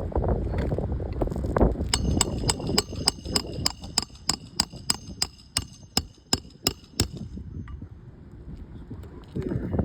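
A quick run of sharp metallic clicks, about three or four a second for some five seconds, each with the same brief high ring, slowing a little before they stop. Wind buffets the microphone at the start and again near the end.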